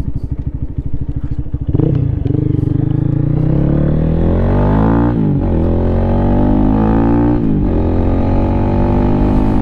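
Lifan KPM 200's single-cylinder engine, fitted with an aftermarket exhaust, ticking over with a lumpy beat, then revving up as the motorcycle pulls away about two seconds in. It climbs in pitch through the gears, with a short dip at each upshift about halfway through and again near the end, then runs on steadily.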